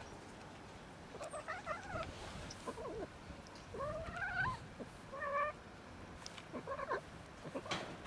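Black-and-white kitten giving a series of short, odd, wavering mews and cries while eating, set off by being stroked.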